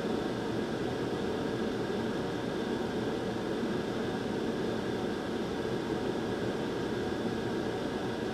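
Hot air rework station blowing a steady, even hiss onto a GPU memory chip while its solder balls are heated to reflow.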